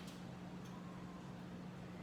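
Quiet kitchen background: a steady low hum with two faint light clicks.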